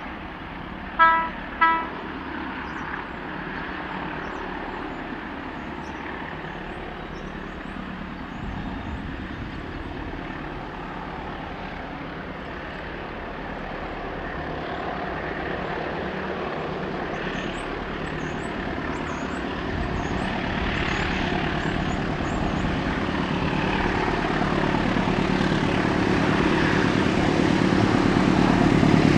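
Two short toots about a second in, then the engines of Class 35 diesel-electric locomotives hauling a coal train, growing steadily louder as the train approaches.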